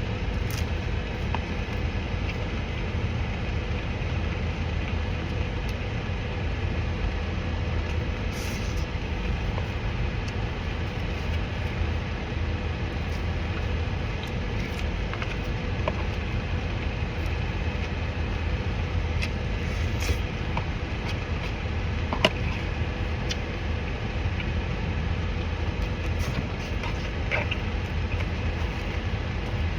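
Steady low engine-like rumble with a thin constant hum, plus a few faint small clicks.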